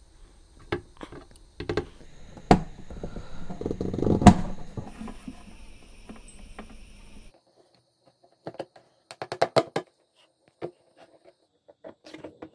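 Scattered small clicks and taps of steel staple pins and a pointed metal tool against a plastic water drum, as the staples are pushed through holes along a crack and bent over to hold it closed. The loudest click comes about four seconds in.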